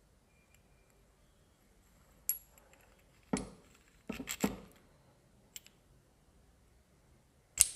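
A few sharp, scattered metallic clinks and knocks of gearbox parts being handled: a motorcycle gear pinion and thin washers fitted onto a transmission shaft.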